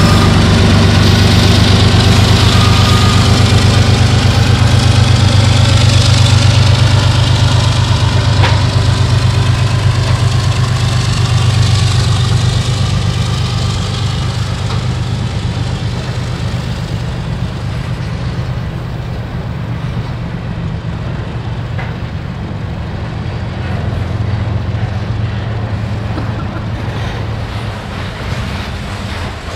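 GE ES44AC diesel locomotive's engine working hard under heavy throttle, a loud, steady low drone. The drone eases off after about fifteen seconds as the locomotive moves away, leaving the rumble of the freight cars rolling past.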